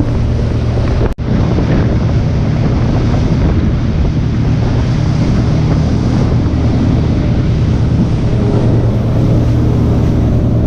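A steady low engine drone under heavy wind buffeting the microphone, broken by a brief dropout about a second in.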